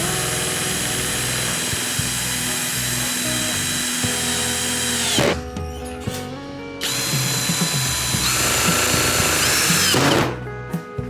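A power tool running in two long stretches, cutting off about five seconds in and again near the end, each time winding down in pitch. Background music plays under it.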